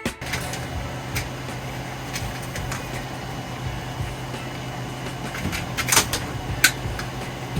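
A steady low mechanical hum with a noisy hiss, broken by a few sharp clicks or knocks about six seconds in.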